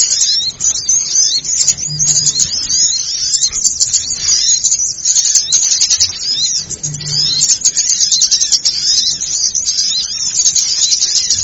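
Bird-lure recording of a noisy chorus of many small birds: dense, overlapping high-pitched chirping and twittering without a break. A brief low note sounds twice.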